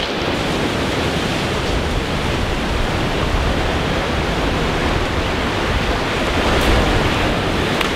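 Wind blowing across the microphone over rushing surf: a loud, steady, even rush with a heavy low rumble.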